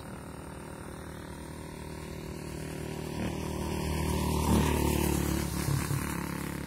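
A motor vehicle's engine passing by, growing louder to a peak about four and a half seconds in and then fading.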